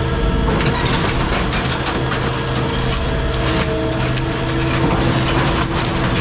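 An engine running steadily, with a dense crackling and crunching over it from about half a second in.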